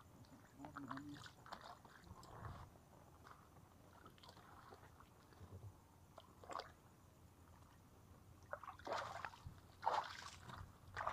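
Faint sloshing and small splashes of shallow water stirred by feet and hands, scattered and irregular, with louder splashes near the end.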